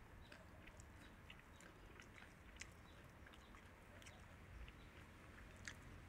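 Guinea pigs chewing lettuce: faint, irregular crisp crunches and clicks, a few a second.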